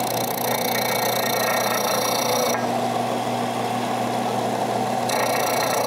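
Central Machinery 4 in × 36 in belt / 6 in disc sander running with a steady motor hum while a wood block is sanded on the aluminum disc. The gritty sanding noise eases off about two and a half seconds in and comes back about five seconds in.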